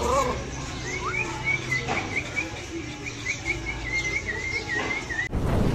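A bird chirping: a run of short, quick high notes lasting about four seconds. It ends suddenly near the end, giving way to a rush of noise.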